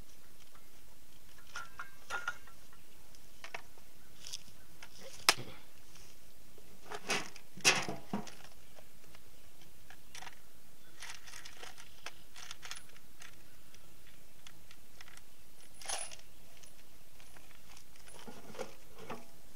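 Cordless drill battery pack being swapped and handled: scattered plastic clicks and clacks, the sharpest one about five seconds in and another cluster of clatter around seven to eight seconds.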